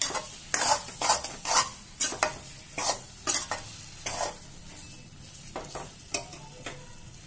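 Slotted steel spoon scraping and stirring gram flour roasting with khoya in ghee in a heavy-bottomed kadhai, about two strokes a second, thinning out and growing fainter after about four and a half seconds. A faint sizzle of the ghee runs underneath.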